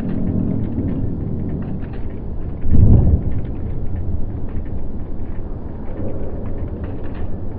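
Side-launched cargo ship hitting the water: a low rumble throughout, with one loud, heavy thump about three seconds in as the hull strikes the river and throws up spray.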